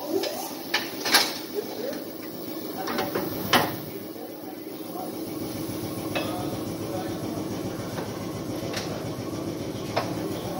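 Metal clanks and knocks as a tire is worked off a steel wheel on a tire-changer machine, the loudest about a second in and again a couple of seconds later, then fewer and fainter knocks over a steady hum.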